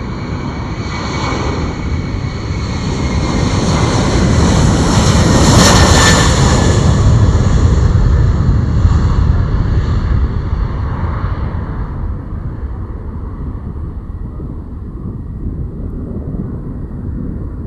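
Lockheed Martin C-130J-30 Hercules' four turboprop engines at takeoff power as it passes, a loud drone with a steady high whine that grows to its loudest about six seconds in, then fades away.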